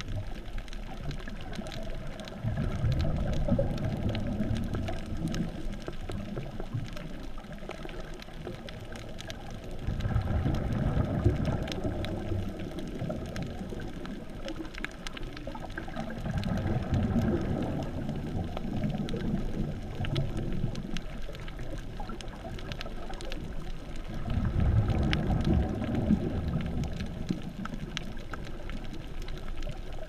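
Muffled underwater water noise heard through a GoPro's waterproof housing: a low rush that swells and fades in slow surges every several seconds, with faint scattered ticks above it.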